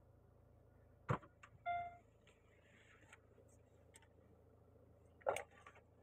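Quiet car-cabin sounds over a low steady hum: a sharp click about a second in, then right after it a short electronic beep. Near the end there is a knock and rustle as the phone on the dashboard is moved.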